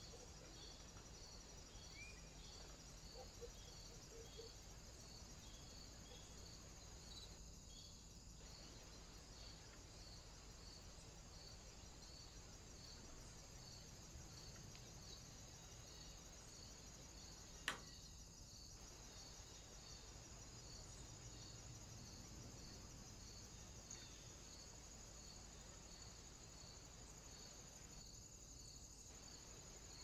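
Near silence: a faint, steady high-pitched hiss with a soft pulse repeating about twice a second, broken by a single sharp click a little past the middle.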